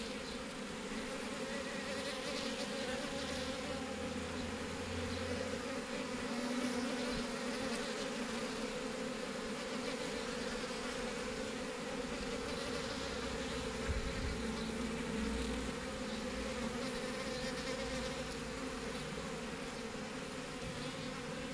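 Swarm of honeybees buzzing steadily, a continuous hum of many bees. A brief low knock a little past halfway.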